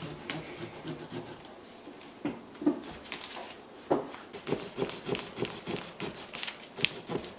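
A pumpkin-carving tool sawing through a pumpkin's rind to cut out the lid, in short rasping strokes that settle into a steady back-and-forth of about three a second in the second half.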